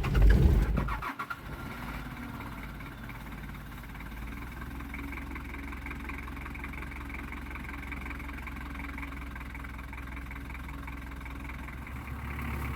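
Cold diesel Land Cruiser engine starting after glowing its plugs: a loud burst as it catches in the first second, then it settles into a steady idle with the choke pulled a little.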